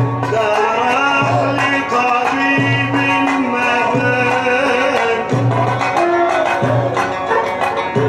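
Amplified live Egyptian Sufi inshad: a sliding, ornamented melody over a steady hand-drum rhythm, with low drum strokes repeating about every second and a half and frame-drum strokes on top.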